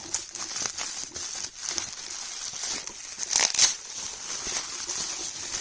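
Packaging crinkling and rustling as it is handled and pulled open, with scattered sharp crackles and a louder tearing crackle about three and a half seconds in.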